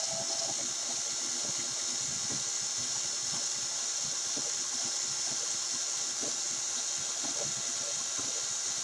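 Cordless drill running steadily under load, spinning a spool of fishing line on a wooden chopstick in its chuck to wind the line on tight: a continuous motor whir with a high hiss.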